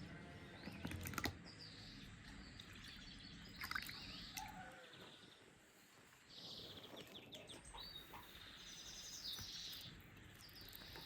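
Faint birdsong: scattered short chirps and trills, with a few light clicks and taps.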